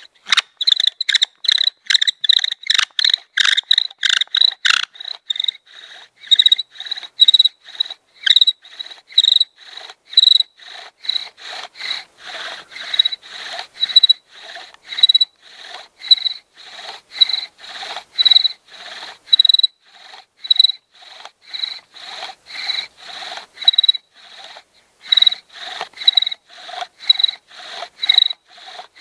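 Wooden bow-drill spindle squeaking in a fireboard as the bow is sawn back and forth, one high squeak on each stroke. The strokes come about two and a half a second for the first five seconds, then settle to a slower, steady rhythm.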